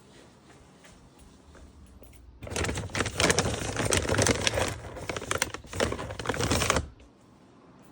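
Dog crunching a hard snack close to the microphone: a dense run of rapid crackling crunches, starting about two and a half seconds in and stopping abruptly about four and a half seconds later.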